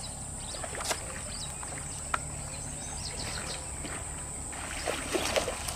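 Outdoor ambience by flooded water: a steady high-pitched insect drone, with short bird chirps and a few faint clicks.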